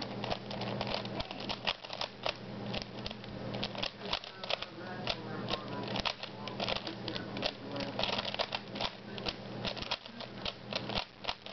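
Plastic 3x3 Rubik's cube turned rapidly through a speedsolve: a fast, irregular run of layer clicks and clacks.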